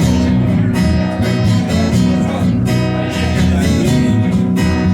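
Strummed acoustic guitar with bass playing a short instrumental passage between sung lines.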